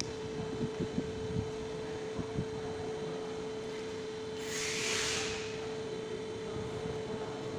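Light clicks and knocks as a loose steering ball joint is picked up and handled, over a steady hum, with a brief hiss about five seconds in.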